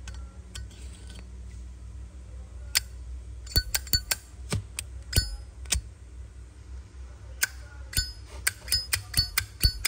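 A Zippo lighter being handled: a run of sharp metallic clicks and clinks with a short ring after each, in two busy clusters, the first starting about three seconds in and the second near the end.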